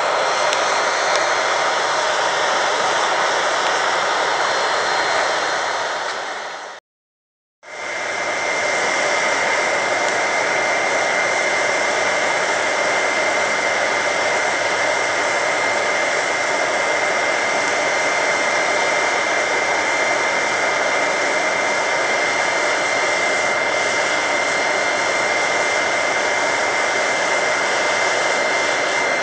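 Forced-air blast roaring through a charcoal-fired homemade foundry melting aluminium, a steady rushing noise with a high motor whine. About seven seconds in it fades out briefly and comes back, with the whine stronger afterwards.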